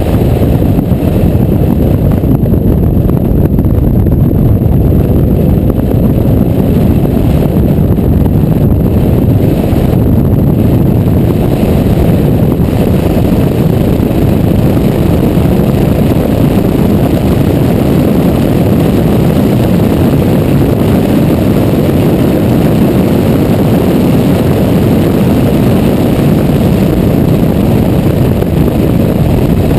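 Steady, loud wind rumble on a camera mounted outside a Porsche 991 Carrera GTS at speed, with the car's flat-six engine and road noise mixed in.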